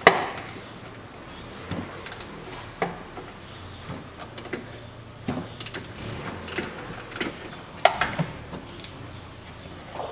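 Irregular metallic clicks and clinks of a hand tool working the front strut-mount bolts, with the sharpest knock right at the start and a brief ringing clink near the end.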